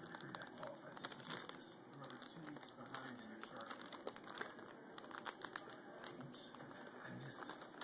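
Lab/Spaniel mix dog eating a treat, chewing and licking with faint irregular clicks and crinkling.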